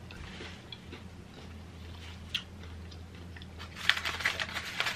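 Quiet chewing with faint ticks, then from about four seconds in a dense crinkling of aluminium foil as a foil-wrapped burger is gripped and lifted.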